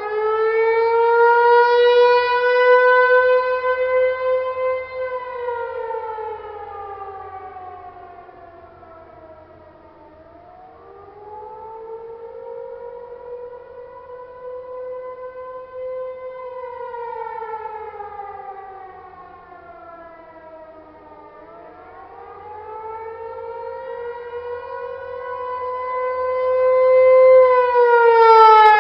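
Federal Signal Tempest outdoor warning siren sounding a rising-and-falling wail, the attack signal. Its pitch climbs, holds for a few seconds, then slides down, about two and a half cycles in all, and the loudness swells with each rise and fades with each fall.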